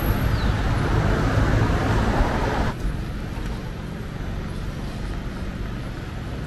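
City street ambience with steady road-traffic noise. About a third of the way in it cuts abruptly to a quieter traffic background.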